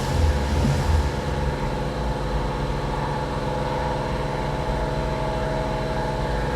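Toyota Avalon's 3.5-litre V6 idling steadily. The mechanic judges it to be running okay now, with the misfire apparently cured.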